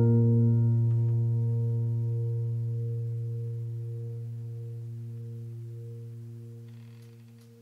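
Background piano music: a low chord struck right at the start rings on and slowly fades away.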